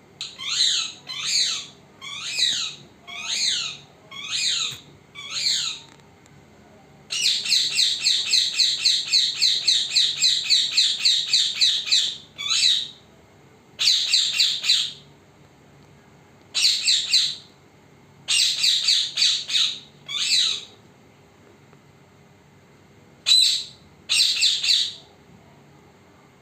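Pet parrot calling: six separate squawks about a second apart, then a rapid unbroken run of repeated notes lasting about five seconds, then shorter bursts of calls with pauses between them.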